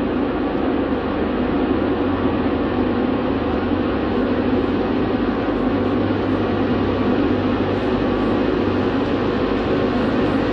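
A steady, loud low rumbling drone with a hum underneath, unbroken and without distinct events.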